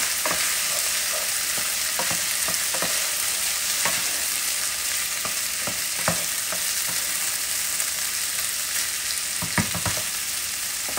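Chicken pieces frying in a pan, a steady sizzle, with a few scattered light knocks and clicks.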